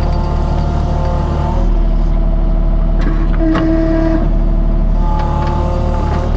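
Skid steer engine running steadily, getting heavier about a second and a half in as it works, with a few metallic clanks.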